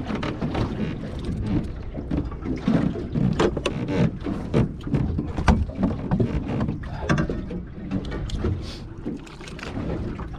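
Wind buffeting the microphone and water slapping against a small boat's hull, with irregular knocks and clatter and no steady rhythm.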